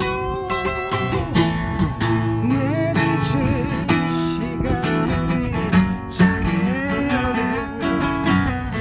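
Acoustic guitar strumming a slow ballad accompaniment, with a wavering melody line over the chords.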